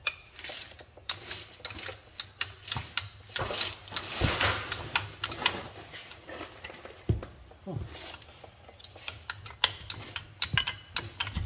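Irregular metal clicks, clinks and scrapes of a wrench and the oil filter cover being worked loose and unscrewed under a tractor, with a couple of duller knocks in the second half.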